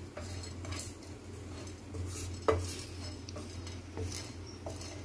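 A spatula stirring and scraping whole spices (black peppercorns, cloves, cardamom pods and cinnamon bark) as they dry-roast in a nonstick pan, with light scrapes and small ticks of the hard spices against the pan, and one sharper knock about halfway. A steady low hum runs underneath.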